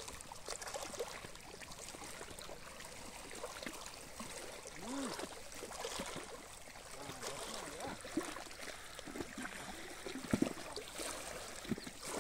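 Small waves lapping at a stony lake shore: an uneven run of little splashes and washes of water, with a couple of louder splashes about ten seconds in.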